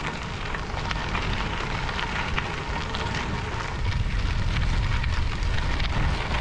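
Bicycle tyres rolling over loose gravel, crunching as a dense run of small irregular crackles, over a steady low wind rumble on the microphone.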